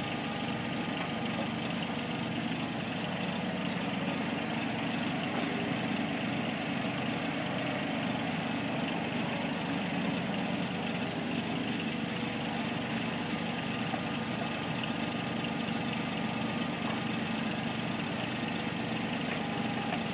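Kubota U25-3 mini excavator's diesel engine running steadily as the machine digs and swings sand.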